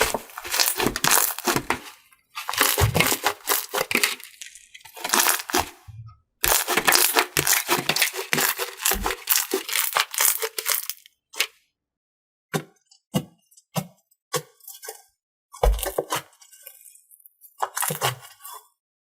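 Slime being squeezed and worked by hand, crackling and popping in long dense runs, then about two-thirds through thinning to scattered single pops and clicks.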